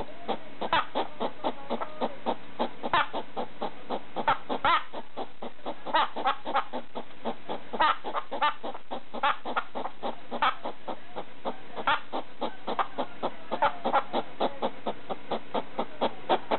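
Pet hedgehog barking at a slipper: a rapid, continuous run of short, sharp clucking calls, about three a second.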